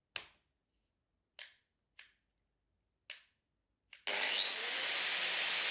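Several short sharp clicks, then about four seconds in an electric angle grinder starts up. Its motor whine rises as it spins up, then it runs steadily at speed.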